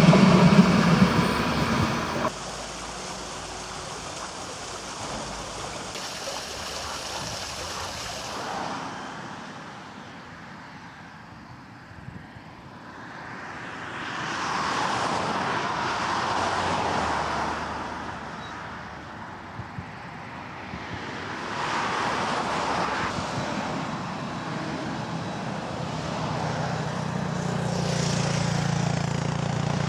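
Passenger coaches rolling past on the rails for about two seconds, cut off suddenly. Then an electric multiple-unit train, a Stadler Flirt, approaches and runs by, its noise swelling and fading more than once, with a low steady hum near the end.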